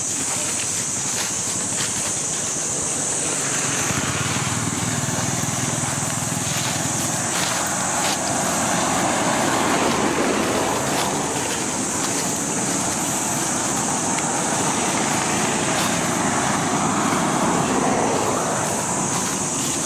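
Road traffic passing: a steady rushing noise that swells and fades twice, over a constant high hiss.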